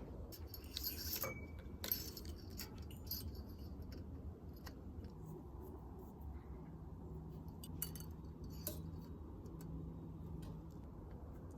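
Metal tools and bike parts being handled, clinking and jingling. A burst of clinks comes in the first two seconds, then single clicks at scattered moments.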